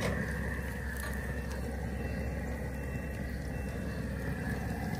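Steady hiss and rumble of an outdoor propane burner under a pot of oil with chicken frying in it.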